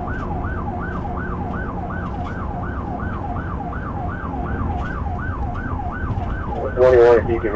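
Police cruiser siren in yelp mode, sweeping rapidly up and down about three times a second, heard from inside the car over steady road and engine noise. Near the end there is a brief, louder burst of another sound.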